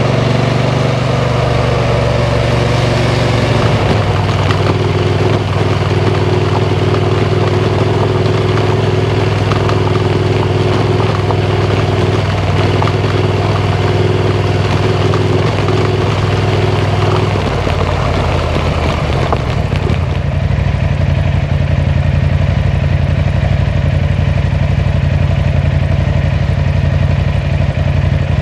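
KTM 890 Adventure R Rally's parallel-twin engine running steadily while riding, its note shifting about four seconds in and again around eighteen seconds in. A high rushing hiss over the engine thins out after about twenty seconds.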